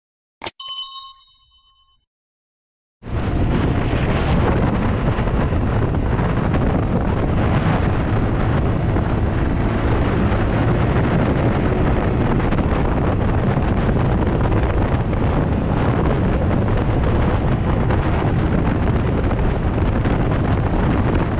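A click and a short bell chime from a subscribe-button animation that fades out, then, after a second of silence, a motorcycle riding at speed: a loud, steady rush of wind on the helmet or handlebar camera's microphone, with the Yamaha MT-15's engine under it.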